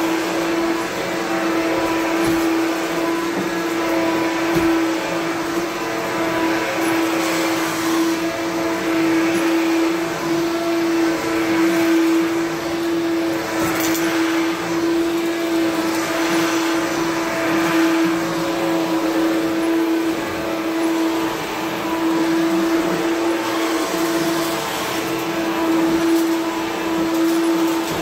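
Self-propelled upright vacuum cleaner running steadily, its motor holding one even tone, with a rushing hiss that swells and fades about every two seconds as it is pushed back and forth over the floor.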